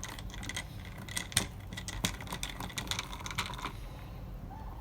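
Irregular light clicks and taps of hand tools and screws being handled while the door panel screws go back in, with a couple of sharper clicks about a second and a half and two seconds in.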